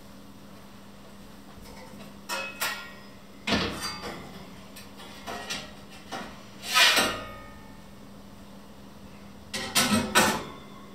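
Metal parts of a stainless-steel stovetop grill being lifted apart and handled: the wire grate and tray clatter and scrape in a run of sharp knocks, with a longer scrape about seven seconds in and a quick cluster of clinks near the end.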